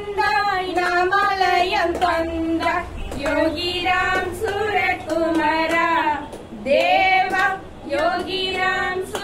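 Young women singing a devotional bhajan to Yogi Ramsuratkumar through a microphone, with children's voices joining in. The melody comes in sustained phrases with short breaks between them.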